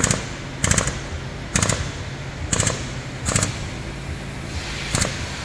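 Pneumatic hammer rattling against the steel front rail of a Mercedes V-Class in six short bursts, worked on the rail while it is held under chain pull on a straightening bench to straighten the damaged metal.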